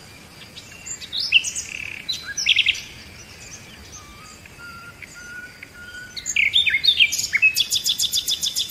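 Birds chirping and singing: short chirps and whistled glides in pitch, then a fast, even trill of about eight notes a second starting about seven and a half seconds in.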